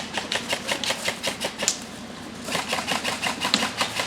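Airsoft gun firing in rapid strings of sharp clicking shots: one burst of about two seconds, a brief pause, then a second burst.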